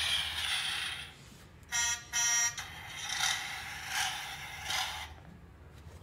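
Vehicle sound effects played through the small speaker of a children's push-button sound book: a hissing machine noise, two short horn beeps about two seconds in, then more machine noise that swells three times and fades near the end.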